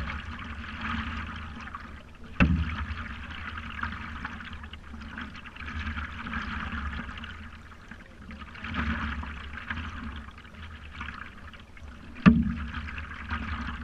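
Water sloshing and lapping against a stand-up paddleboard, close up, swelling and fading every few seconds over a low rumble. Two sharp knocks on the board, about two and a half seconds in and near the end.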